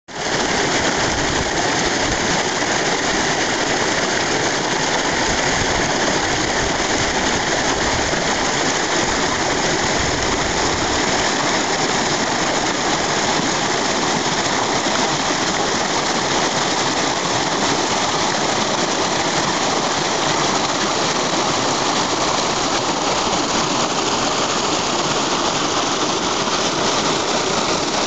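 Small rain-swollen mountain stream rushing and splashing over rocks: a steady, unbroken rush of water.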